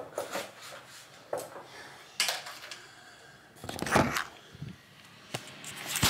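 Scattered handling noises as the camera is picked up and moved: light knocks, clicks and rustles, the loudest rustle about four seconds in and a sharp knock at the end.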